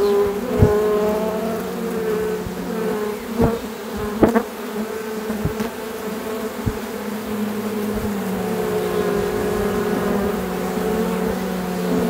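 A swarm of honeybees buzzing at close range as it crowds into a nucleus hive: a steady hum of many wings, with a few light taps scattered through.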